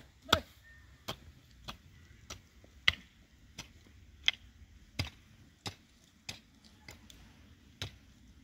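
Repeated sharp knocks at a steady pace, about three every two seconds, some louder than others.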